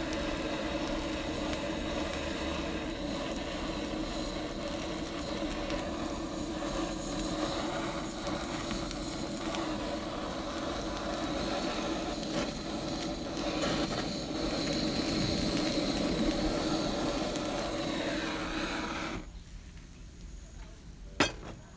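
Handheld kitchen blowtorch burning with a steady hiss while it caramelizes sugar sprinkled on rice coconut pancakes. The flame shuts off near the end, followed by a single sharp click.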